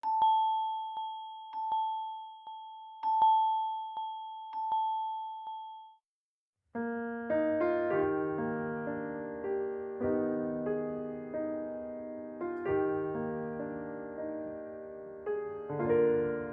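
Two Samsung Galaxy S20 ringtones played back. The first is a single bell-like chime tone struck again and again, about every second and a half, until it stops about six seconds in. After a short gap, the next ringtone starts: a keyboard melody of layered chords.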